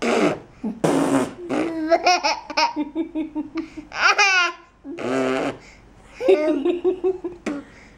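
Baby laughing in repeated bursts of quick 'ha-ha' pulses, with a high falling squeal about four seconds in.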